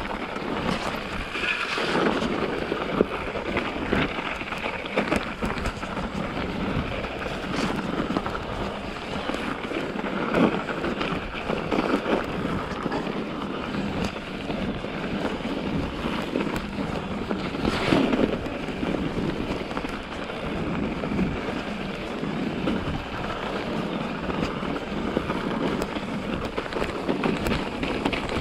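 Mountain bike ridden fast over a snowy, rough forest trail: the continuous rumble and rattle of tyres and frame over the bumps, with wind on the microphone and a few sharper knocks from hard hits.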